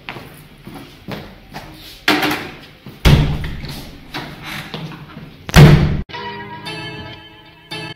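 A run of heavy thuds and bangs, the loudest about five and a half seconds in, after which music cuts in suddenly at about six seconds.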